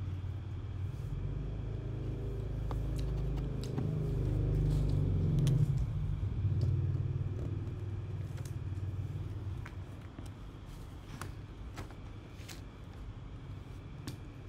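A low rumble that swells to its loudest about five seconds in and fades away by about ten seconds, with scattered light clicks.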